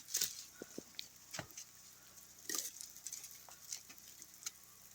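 Scattered, irregular light ticks and crackles of ice in an ice storm, with a slightly louder crunch about two and a half seconds in.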